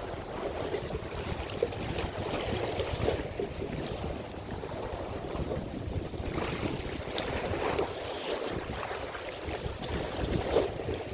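Strong wind buffeting the microphone, with waves sloshing against the shore, swelling and easing in gusts.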